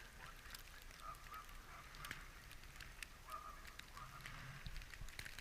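Chairlift creaking: faint short squeaks and scattered clicks several times, over a low rumble.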